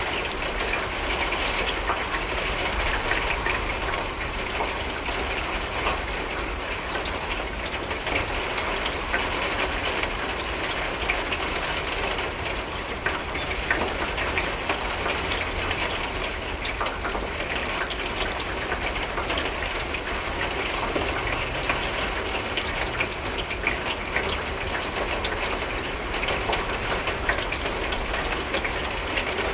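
Steady rain falling on a window: a dense, even patter of drops with many small ticks over a low, steady rumble.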